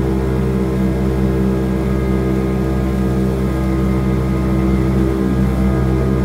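Jet boat's engine running at a steady speed, a constant drone over the rush of water.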